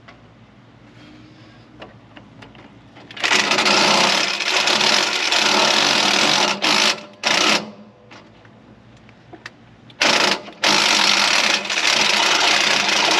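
Power drill boring a large hole through a hard bar. The drill starts about three seconds in and runs in long bursts, with two short stops.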